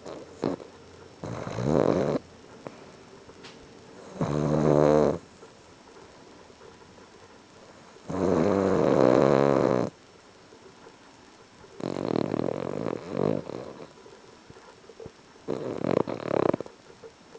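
A pet snoring, five snores each a second or two long and a few seconds apart. The one about eight seconds in is the longest.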